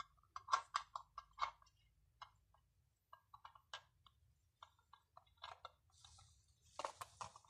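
Calico cat licking and chewing soft flan from a small cup: irregular quick wet clicks and smacks, several a second, with a short pause about two seconds in and a soft hiss near the end.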